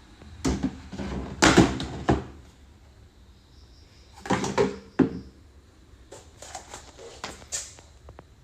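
Three clusters of clattering knocks, like lids or panels being opened, closed and handled, with quieter pauses in between.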